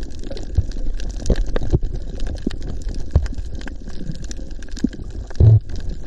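Underwater sound picked up by a camera on a shallow coral reef: a dense crackle of short scattered clicks over a low water rumble, with one louder low thump about five and a half seconds in.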